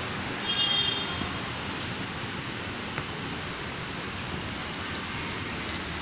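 Steady rushing background noise, with a short high whistle-like call about half a second in and a faint click near the middle.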